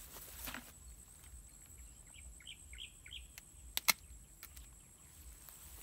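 Hand pruning shears snapping shut twice in quick succession, nearly four seconds in, cutting a dragon fruit from its cactus stem. About two seconds in, a bird gives a quick run of about six short chirps.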